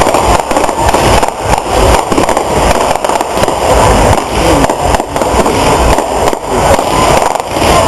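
Fireworks display: a continuous dense run of crackles and low bangs, loud enough to overload the recording.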